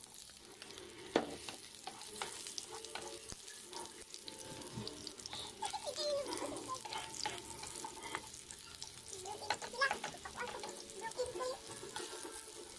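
Sliced onion and garlic frying in a little oil in a nonstick pan, sizzling faintly while a utensil stirs them, with scattered clicks and scrapes of the utensil against the pan.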